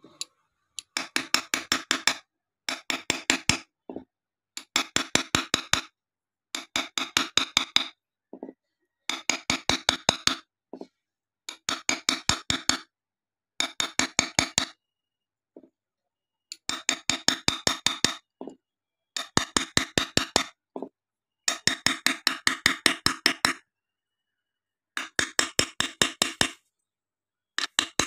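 A pointed engraving tool tapping rapidly on a sheet of glass, about ten sharp taps a second in runs of one to two seconds with short pauses between. Each tap rings briefly in the glass.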